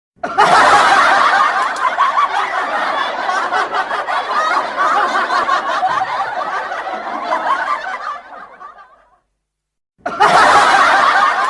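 Studio audience laughing together, a canned laugh track. It fades out about eight seconds in, stops briefly, and starts again abruptly about ten seconds in.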